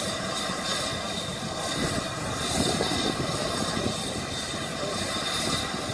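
Peppercorn A1 Pacific steam locomotive Tornado standing and simmering, giving off a steady hiss of steam, with crowd voices faintly mixed in.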